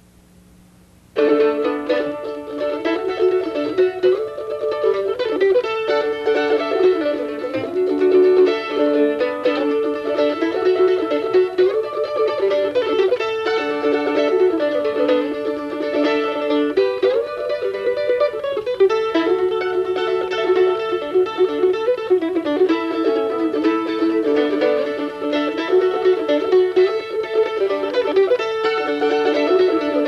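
A 1923 Gibson F5 mandolin, without a Virzi Tone Producer, played solo: a tune picked out in a continuous run of notes, starting about a second in.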